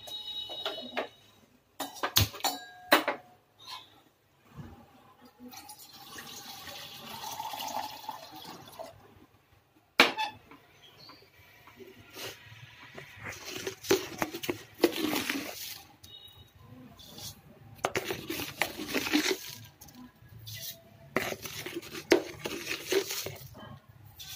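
Milk poured into a small steel saucepan, with sharp clinks and knocks of steel kitchen utensils and more splashing of liquid in bursts later on.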